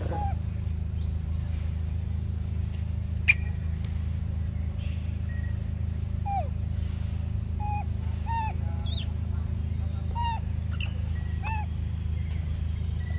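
Short chirping calls that slide down in pitch, repeated about ten times and bunched toward the end, over a steady low hum; a single sharp click about three seconds in.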